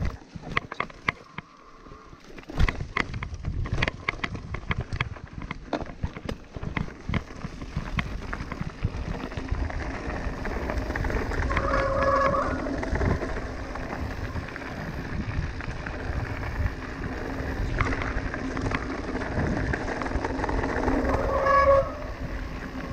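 Mountain bike riding down a rocky trail: a dense run of rattles and knocks as the bike bounces over stones, then a steadier rush of tyres rolling on gravel. Two short squeals come through, one near the middle and one near the end.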